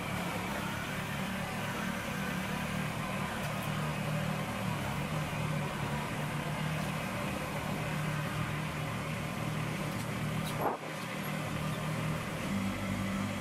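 Kubota BX compact tractor's three-cylinder diesel engine running steadily as the tractor is driven into position. About eleven seconds in there is a brief sharp sound and a moment's dropout, after which the engine note shifts slightly.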